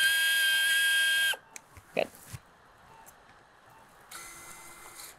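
Surgical power handpiece driving the trochlear mill, milling out the trochlear groove of the femur: a loud, steady, high-pitched whine that cuts off suddenly about a second in. A few faint instrument clicks follow, and a brief softer hiss comes near the end.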